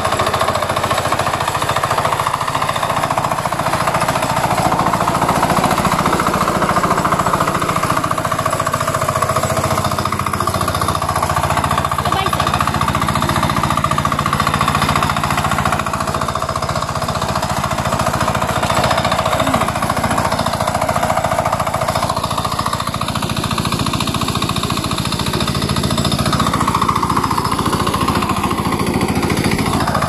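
Kuliglig (two-wheel hand tractor) with its small single-cylinder engine running steadily with a fast, even beat as it tills a muddy rice paddy.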